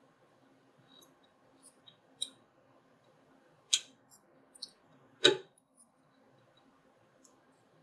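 Small plastic clicks and taps of a cable connector being handled and pushed into an Ender 3 Pro's X-axis limit switch. A few light ticks lead up to two louder clicks a little past the middle, the second duller, like a small knock.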